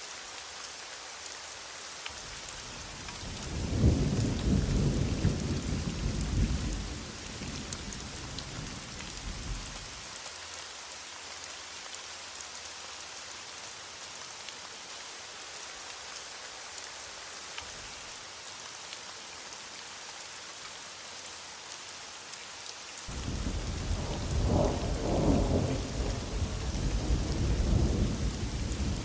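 Steady heavy rain hissing, with two long low rolls of thunder. The first begins about three seconds in and dies away over several seconds; the second begins near the end.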